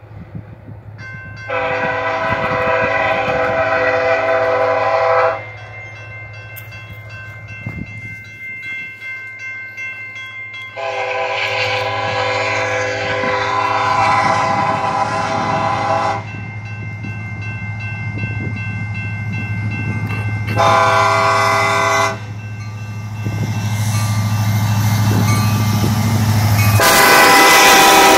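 Union Pacific diesel locomotive's horn sounding the grade-crossing signal: two long blasts, a short one, and a last long one beginning near the end, the sign of a train approaching a road crossing. Under it the low drone of the locomotives' diesel engines grows louder as they draw near.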